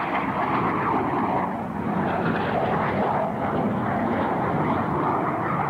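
A small jet aircraft's engine noise, a steady rushing roar as it flies an aerobatic display overhead.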